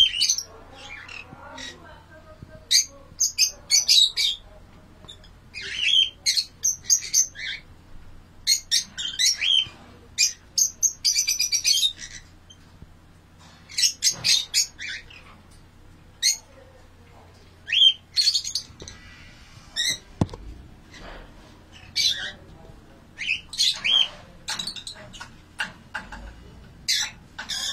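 Lovebirds calling: shrill squawks and chirps in quick clusters, with short pauses between them.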